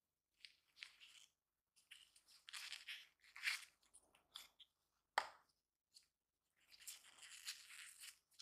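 Crisp rustling and crinkling as nitrile-gloved hands slide the wrapper band off a coiled white USB charging cable and uncoil it, in short bursts, with one sharp click about five seconds in.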